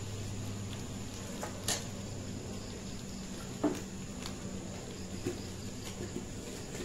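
Mutton frying in oil in a black iron karahi over a wood fire, a quiet steady sizzle with a few faint crackles, the meat's own released water now cooked off. A steady low hum runs underneath.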